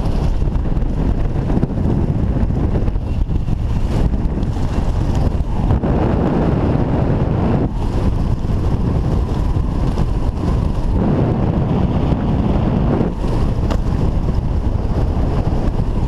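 Wind buffeting a helmet camera's microphone on a parachute descent: a loud, steady rumble that swells and dips in uneven gusts.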